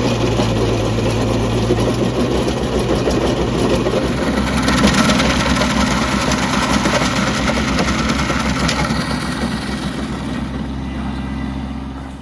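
Kubota B2650 compact tractor's diesel engine running a PTO-driven Woods stump grinder, the cutter wheel grinding into a pine stump with a dense crackling noise over the engine's steady drone. The grinding grows harsher from about halfway through and eases near the end.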